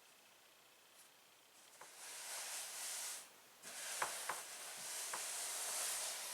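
Quilting fabric rustling and rubbing in two stretches of soft hiss, with a few light clicks, as a freshly pieced quilt row is put up and smoothed into place.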